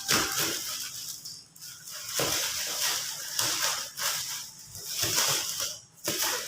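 Plastic parcel wrapping being handled and pulled open, crinkling and rustling in irregular bursts.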